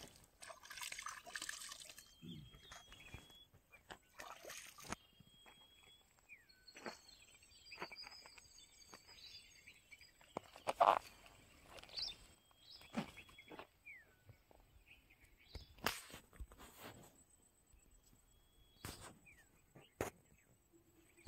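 Water splashing and sloshing at a canal's edge as hands scoop and pour it, for the first couple of seconds. After that, quiet outdoor ambience with several short thin bird whistles that drop at the end, and scattered ticks and knocks, the loudest about halfway through.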